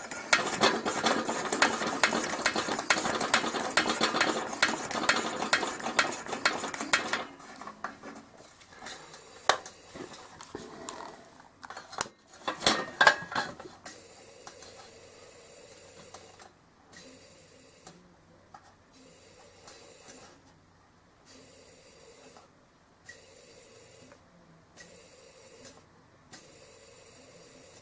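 Rapid metallic rattling and clicking from handling a Coleman Model 220 pressure lantern for about seven seconds, then a few separate sharp clicks and taps, then only a faint hiss.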